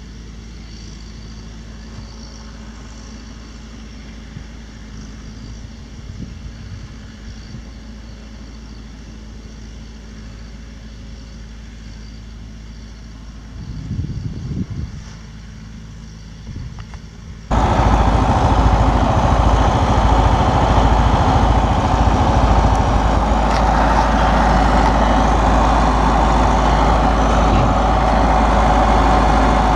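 Massey Ferguson 375 diesel tractor running with a round baler in tow, at first steady and more distant, with a brief swell about two-thirds of the way in. A little later the sound jumps suddenly to a much louder, close-up running of tractor and baler.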